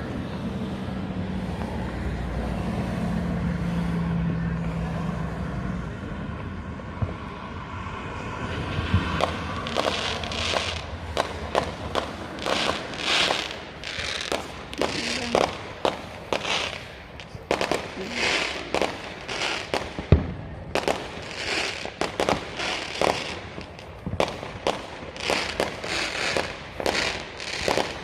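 A steady low rumble at first, then from about nine seconds in a rapid, almost continuous run of firework bangs and crackles, with one especially sharp bang about twenty seconds in.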